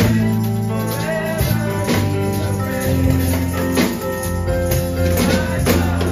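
Live gospel church music: an electric bass holds low sustained notes under voices singing, with a tambourine and percussion striking about once a second.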